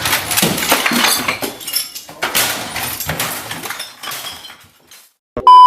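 About four seconds of noisy rustling and clattering with many small clicks. Near the end, after a brief hush, a loud steady electronic beep sounds, a single pure tone lasting under a second.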